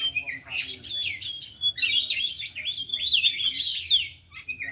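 Oriental magpie-robin (kacer) singing a fast, varied song of chirps, trills and quick whistled slides, the kind of run in which a trained bird pours out its imitations of other birds. The song breaks off shortly before the end.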